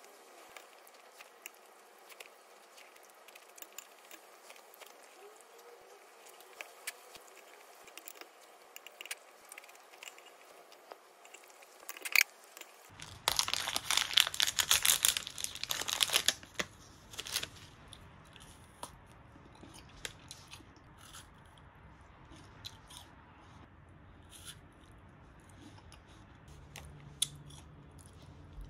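Faint scattered small clicks at first. About halfway through comes a loud stretch of a few seconds of plastic ice-pop wrapper being torn open and crinkled. After that, sparser small clicks and rustles.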